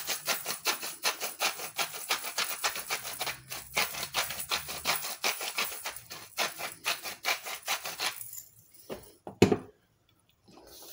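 Hand-twisted salt grinder crushing coarse pink salt crystals: a rapid, dense rasping crackle for about eight seconds that then stops. A single knock follows near the end.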